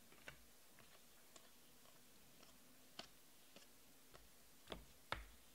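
Near silence with a few faint, irregular clicks of baseball trading cards being flicked and shuffled through by hand.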